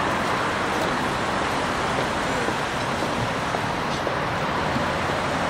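Steady street traffic noise from cars on the road.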